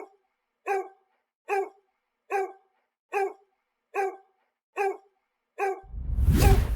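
A dog barking steadily, eight single barks at an even pace of a little more than one a second. Near the end a loud rushing noise swells up over the barking.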